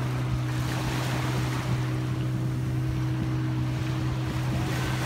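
A jet ski engine idling close by with a steady low hum, over the wash of waves and some wind on the microphone.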